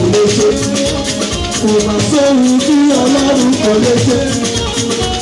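Loud music with a steady, busy percussion rhythm and a melody line, played through a sound system.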